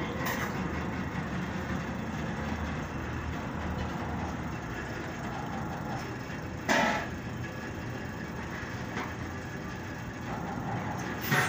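Steady low machinery hum, with a single sharp knock about two-thirds of the way through and another just at the end.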